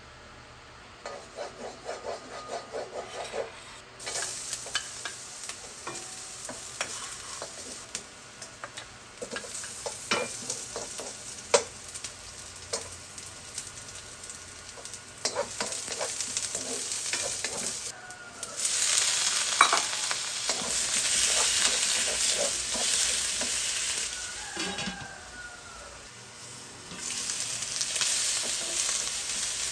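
Food frying in a pan, with utensil clicks and knocks against the pan as it is stirred. A loud sizzle swells up about two-thirds of the way in, dies down briefly, and comes back near the end.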